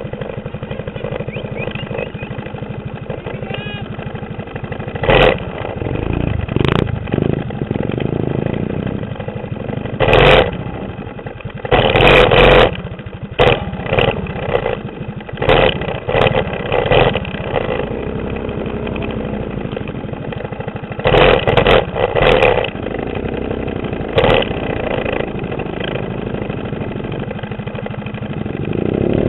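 Mini bike engines, small single-cylinder 6.5 hp clone engines, running: a steady idle underneath, broken again and again by short, loud bursts of throttle, and a rising rev near the end.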